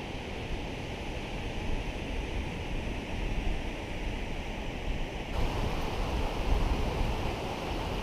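Steady rush of river water pouring over a low-head dam, an even roar of spilling water; the sound gets brighter and a little louder suddenly about five seconds in.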